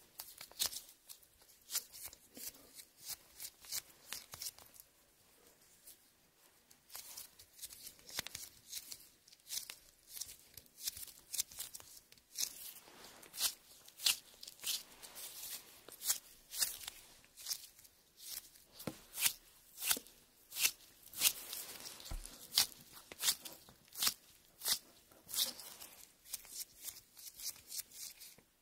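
A soft homemade gel squishy squeezed and pressed between fingers, making irregular sticky clicks and crackling squelches, with a brief lull about six seconds in.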